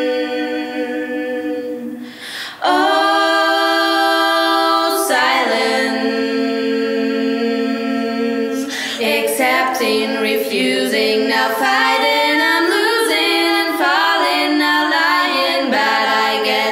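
Unaccompanied voices singing in harmony: long held chords that change about three and five seconds in, then quicker shifting notes and rising lines from about nine seconds in.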